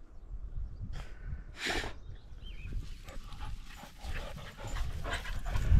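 Dogs panting and snuffling close by, with two short breathy bursts in the first two seconds over a steady low rumble.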